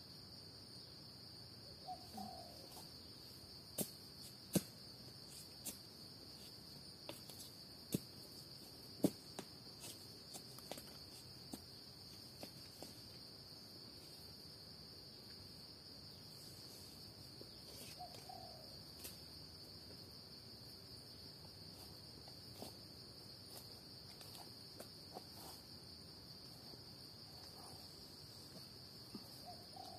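Steady high-pitched drone of forest insects, with scattered sharp clicks and snaps throughout and a few faint short calls.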